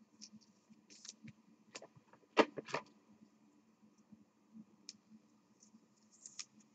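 Football trading cards being handled and sorted: faint scattered clicks and light card-on-card snaps, with two sharper clicks about two and a half seconds in, over a faint low hum.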